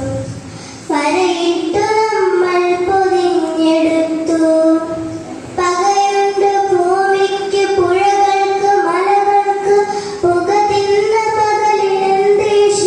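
A child singing a song in phrases of long held notes, with brief pauses between phrases.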